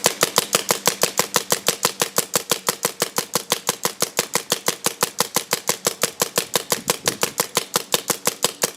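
Paintball marker firing a long, even string of rapid shots, about eight a second, each a sharp pop.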